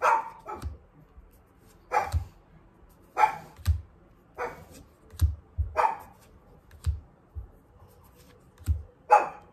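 A dog barking repeatedly: about six sharp single barks a second or so apart, then a pause of about three seconds before a last bark near the end.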